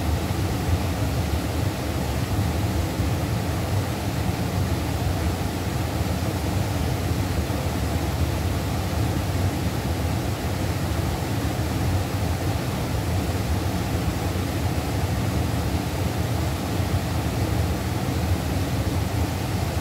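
River current rushing steadily, an even noise with no breaks.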